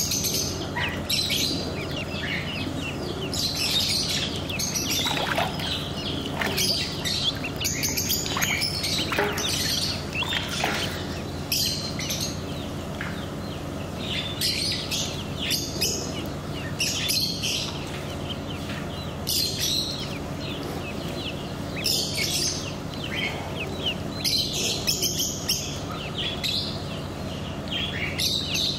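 Ducklings peeping in clusters of high chirps every second or two, over a steady low hum.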